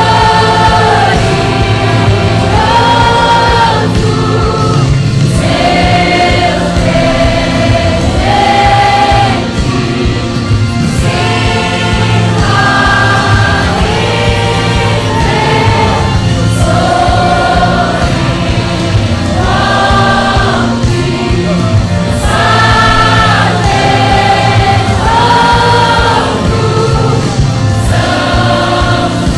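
Gospel music: a group of singers sings a worship song together in sustained notes over a full band accompaniment.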